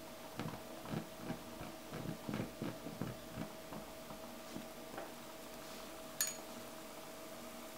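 Faint, irregular soft pops and puffs, two to four a second for about three seconds, as a homemade beer-can alcohol burner is lit with a match and its jets catch fire. A single sharp click about six seconds in.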